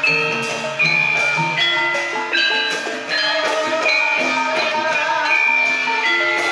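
Javanese gamelan ensemble playing a Banyumasan gending: bronze metallophones and bonang kettle gongs struck in a steady flow of ringing notes.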